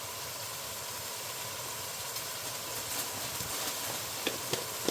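Food sizzling steadily in a pan, with a few light clicks near the end.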